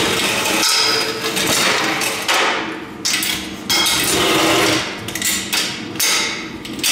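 Aluminum loading ramp being gripped and shifted by hand, clanking and rattling in several sudden bursts about a second apart.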